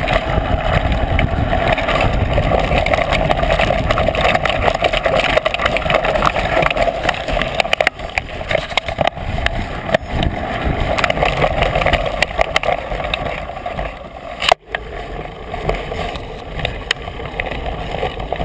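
Mountain bike riding fast over a dirt singletrack, heard from a handlebar-mounted camera: a continuous rumble of the tyres on dirt with constant rattling and clattering from the bike and mount, and one sharp knock about three-quarters of the way through.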